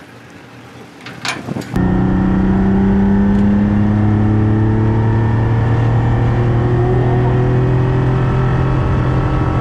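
Ferrari Dino 246's 2.4-litre V6 heard from inside the cabin, pulling steadily on the track with its revs climbing slowly. It comes in abruptly about two seconds in.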